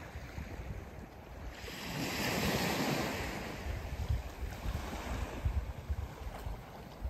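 Small sea waves washing onto a stony shore: one wash swells up a couple of seconds in and fades away, over a steady low rumble of wind buffeting the microphone.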